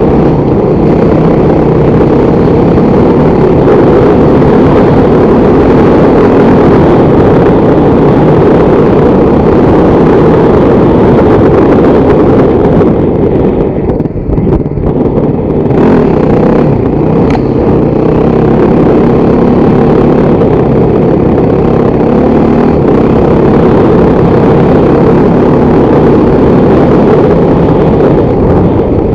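Motorcycle engine running steadily while riding, loud and close, easing off briefly about halfway through before picking up again.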